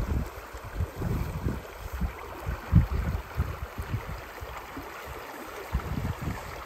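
Wind buffeting the microphone in irregular low rumbles, over a steady rush of creek water.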